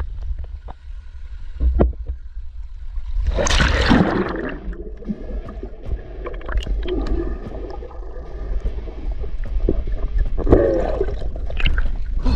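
A splash about three seconds in, then muffled underwater gurgling and bubbling with scattered small knocks, heard from below the river's surface.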